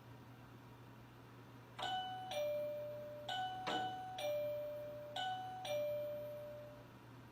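Two-tone "ding-dong" doorbell chime sounding three times in a row, each a higher note falling to a lower note that rings on and fades.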